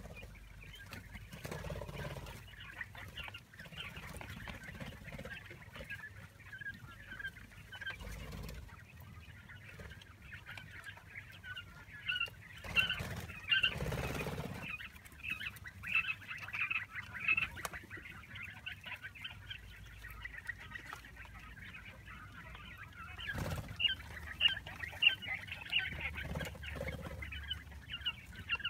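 A flock of quail chicks about a month old, peeping continuously in many rapid, high chirps, with a short noisy rush about halfway through.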